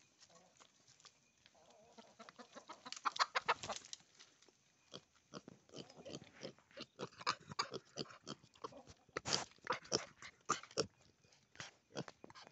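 Piglets rooting and sniffing close up on stony ground: a dense run of quick snuffles, clicks and scrapes of snouts and trotters on stones, starting about two seconds in.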